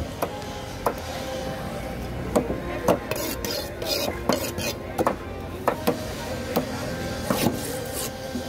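A curved steel knife chopping through a large cobia's body onto a wooden cutting board: a series of sharp knocks roughly a second apart, with a stretch of scraping in the middle.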